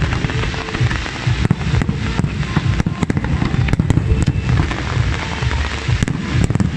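Fireworks display: many aerial shells bursting in quick, overlapping succession, a continuous low rumble of bangs with sharp pops and crackling on top.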